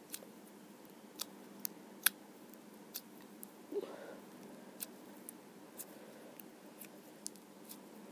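Sharp, irregular little clicks and pops from a ball of pink clear-glue slime being squeezed and poked between the fingers; the slime has been worked full of air bubbles.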